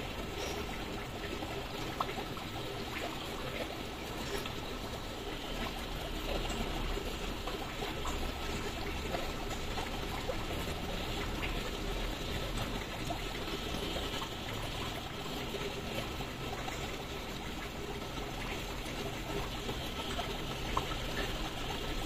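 Water trickling steadily, with a few faint ticks.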